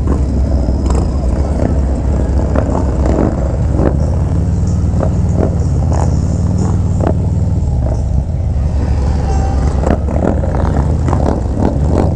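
Harley-Davidson V-twin motorcycle engine running under the rider at road speed, heard with wind rumble on the rider's mic; the engine note climbs a few seconds in as the bike pulls away, then eases off.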